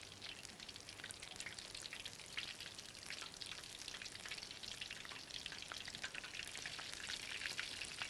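Spring rolls deep-frying in hot oil on lowered heat: a steady sizzle with many small crackling pops.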